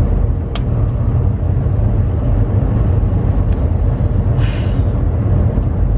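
Steady low engine and road rumble inside a moving semi truck's cab, with a couple of faint clicks.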